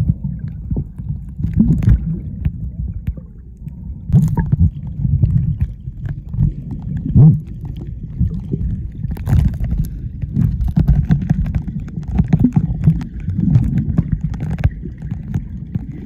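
Water sound picked up by a camera held underwater while snorkeling: a muffled low rumble of water moving around the camera, with scattered sharp clicks.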